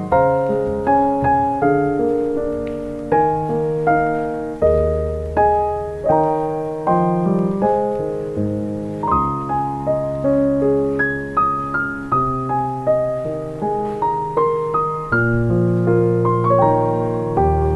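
Background piano music: a slow melody of single struck notes over held bass notes, each note fading away before the next.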